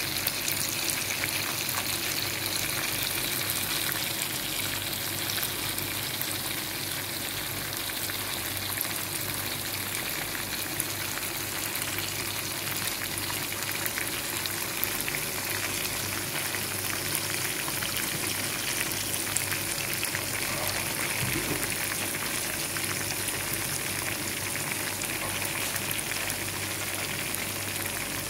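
Chicken breast pieces frying in hot, bubbling oil: a steady sizzle dotted with constant small crackles.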